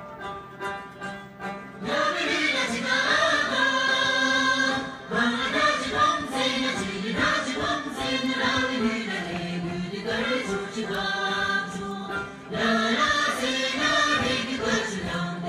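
Tibetan folk song sung by a group of voices over plucked strings. A few plucked notes come first, and the singing comes in about two seconds in, dropping out briefly twice.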